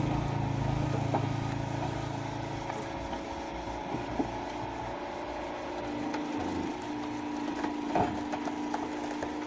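A machine's engine running steadily, with a few sharp knocks, the loudest about eight seconds in.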